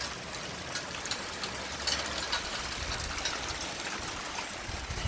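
Snowstorm ambience: a steady hiss with scattered small ticks of falling wet snow and drips, over a low rumble.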